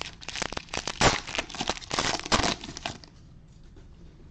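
Cellophane wrapper of a trading-card pack crinkling and tearing as fingers peel it open; the crackling stops about three seconds in.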